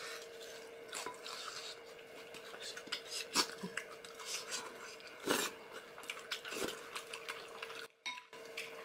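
Light clinks and taps of cutlery against dishes during a meal, with a few sharper knocks about three and a half and five seconds in, over a faint steady hum.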